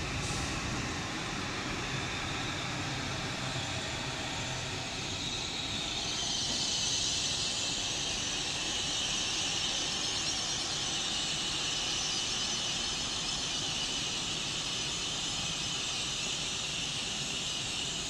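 Train noise: a steady rumble with a high hiss that grows louder about six seconds in and then holds.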